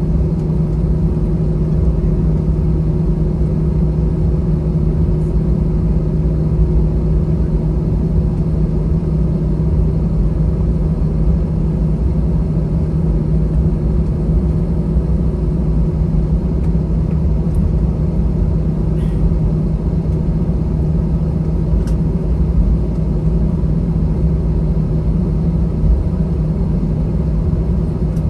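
Steady cabin noise of an Airbus A321 taxiing: a low rumble with an even hum from its CFM56 turbofan engines running at taxi power.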